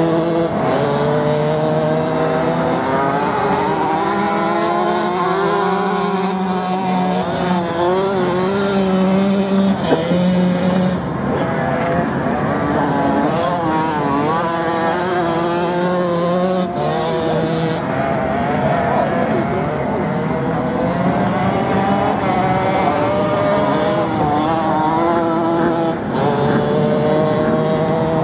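Off-road motorcycle engines racing on sand, their pitch rising and falling as the riders open and close the throttle.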